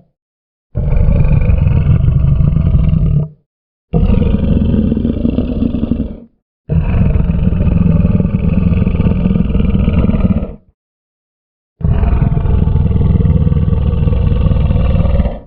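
Crocodile growling: four long, low, rough growls, each lasting about two and a half to four seconds, separated by short silent gaps.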